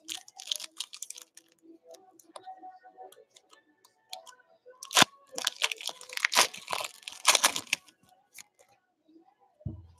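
A Prizm basketball card pack's shiny wrapper being torn open and crinkled by hand, in crackling bursts, with one sharp crack about halfway through. The tearing is densest in the second half.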